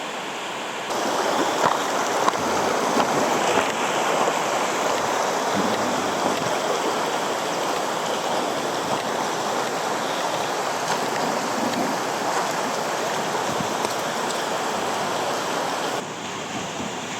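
Mountain stream water rushing over rocks, a steady rush. It steps up sharply in loudness about a second in and drops back just as sharply near the end.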